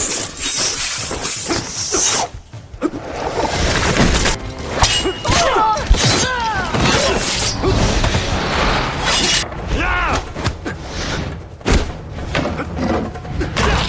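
Film sword-fight soundtrack: steel blades clashing and ringing, with thuds of blows and shouts over music.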